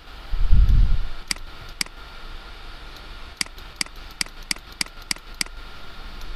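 Computer mouse clicking: about ten sharp clicks, a few at first and then a quick run of them over the second half. Near the start there is a dull low thump lasting under a second, the loudest sound here.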